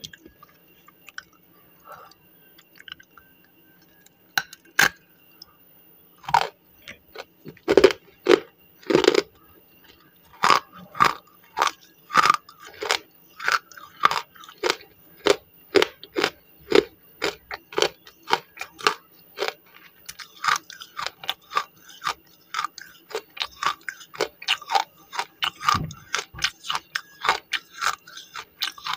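Slate pencil being bitten and chewed with crisp crunches: a few separate bites in the first ten seconds, then steady chewing at about two crunches a second.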